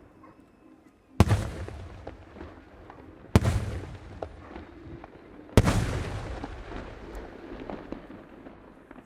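Three loud aerial firework shell bursts, a bit over two seconds apart, each followed by a long rolling echo that dies away, with a few fainter pops in between.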